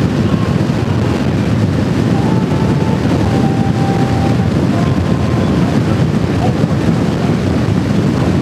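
Steady wind noise buffeting the microphone of a moving motorcycle, with road and engine noise underneath.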